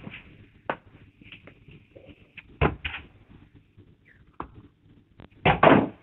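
Cardboard boxes being handled: the inner product box is pulled out of its cardboard carton with a few separate knocks and rubs of cardboard, then a louder scrape and thump near the end as the box goes down on the table.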